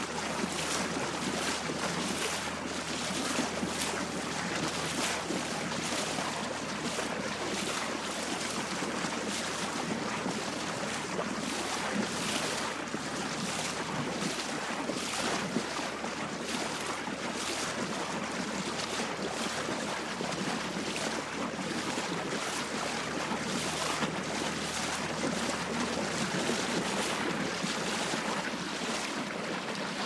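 Waves slapping and splashing against a small boat's hull: a steady wash of water with frequent short, irregular splashes.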